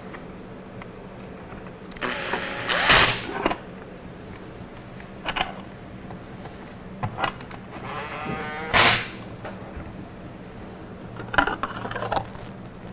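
Cordless drill/driver with a hex bit running bolts into a scroll saw's arm assembly, in several short bursts of motor whirring that stop and start, the whine wavering in pitch. A few light clicks of handling fall between the bursts.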